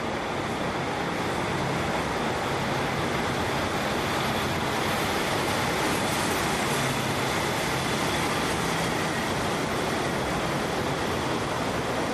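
A double-deck regional train hauled by a DB class 111 electric locomotive rolling along a station platform: a steady noise of wheels on rail, growing slightly louder.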